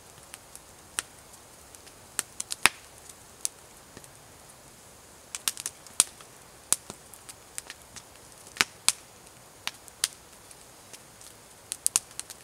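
Campfire of split logs burning and crackling, with sharp irregular pops and snaps over a faint hiss.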